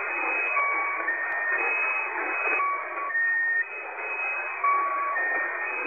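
Shortwave radio reception of the S32 'Squeaky Wheel' military number station: a repeating pattern of short steady tones, about half a second each, stepping between several pitches, under thick radio static.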